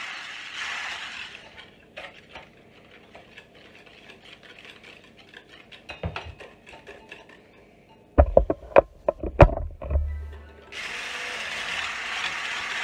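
Electric hand blender with a whisk attachment running in a bowl of eggs and sugar, whisking them until fluffy; the steady whirr stops about a second in and starts again near the end. In between there are light clicks, and then a few loud thumps, the loudest sounds here.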